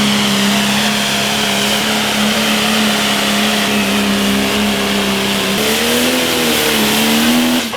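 John Deere Pro Stock pulling tractor's turbo diesel engine running flat out on a pull, a loud steady note with a high whine over it. The pitch lifts and wavers about five and a half seconds in, then the sound cuts off abruptly.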